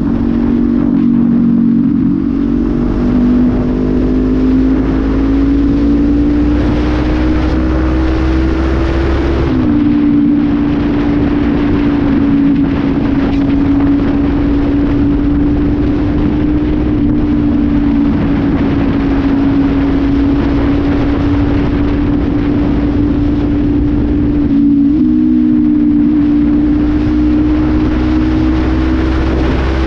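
Honda CB500F's parallel-twin engine through an aftermarket Pure Sound exhaust, running hard on the road. Its pitch climbs for several seconds, drops sharply at a gear change about a third of the way in, then holds a steady cruise, with a rush of wind and road noise underneath.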